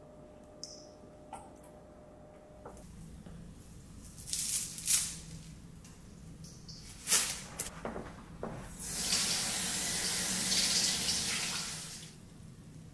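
Kitchen faucet running into the sink for about three seconds near the end, stopping abruptly. Before it come a few sharp snips of kitchen shears cutting cilantro stems.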